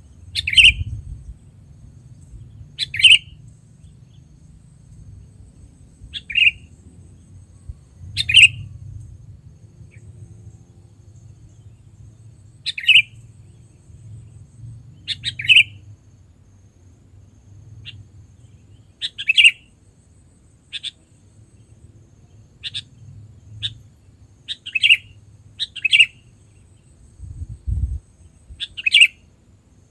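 Sooty-headed bulbul (kutilang) giving short, sharp calls, about a dozen at irregular intervals of one to a few seconds, over a faint low rumble. A dull low thump comes near the end.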